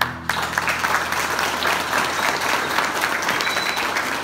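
Audience applauding: dense, steady clapping that starts about a third of a second in.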